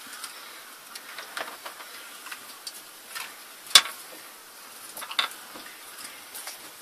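Jack Russell terriers eating dry kibble from a plastic bowl: scattered crunching and small clicks, with one sharp click just before four seconds in.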